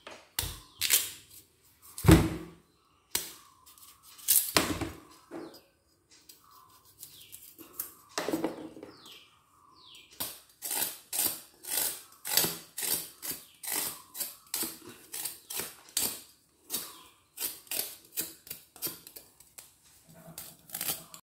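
Kitchen knife scraping and slicing the skin off a raw sweet potato in short strokes. There are a few loud strokes spread out at first, then a steady run of about two strokes a second in the second half.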